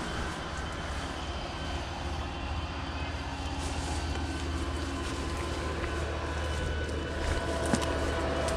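Steady low engine drone of a motor vehicle on the road, with a single light knock near the end.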